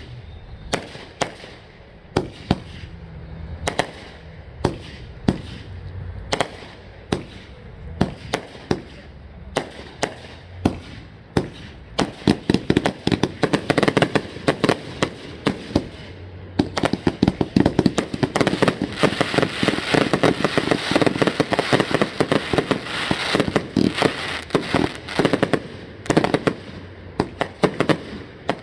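Fireworks going off: sharp reports about one a second, building to a dense crackling barrage in the middle, then thinning back to single reports near the end.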